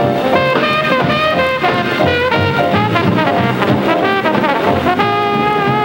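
Background music, with brass instruments playing a melody.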